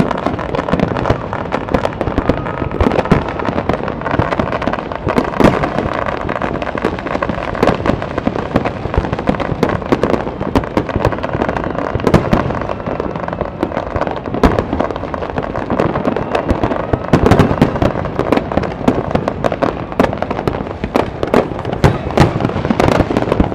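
New Year fireworks going off continuously: a dense crackle of bangs and pops, many a second, with louder bangs standing out every few seconds.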